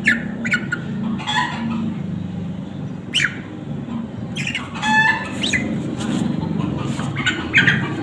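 A chicken being held by hand squawking in protest: repeated short squawks every second or so, several dropping sharply in pitch, a cluster of them about five seconds in.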